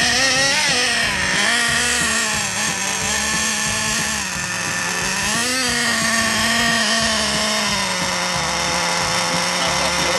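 Radio-controlled model snowmobile's motor running with a high whine, its pitch rising briefly twice as the throttle is worked.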